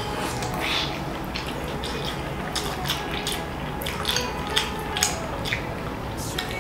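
Eating soup with a metal spoon from a ceramic bowl: scattered short spoon clinks and scrapes, with slurps and chewing in between.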